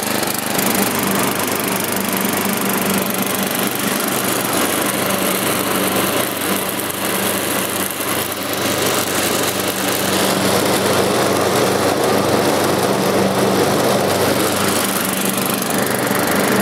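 Lawn Chief riding lawn mower's 11 hp Briggs & Stratton flathead engine running steadily while mowing, getting louder about ten seconds in.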